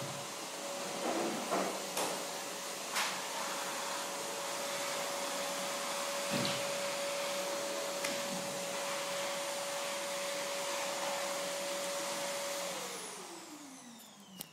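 Electric appliance motor running steadily with a hiss and an even hum, then switched off near the end: its pitch falls as it winds down. A few sharp clicks and knocks sound over it.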